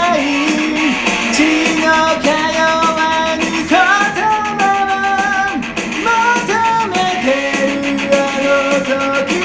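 Music: a song with guitar and a held, gliding melody line, likely singing.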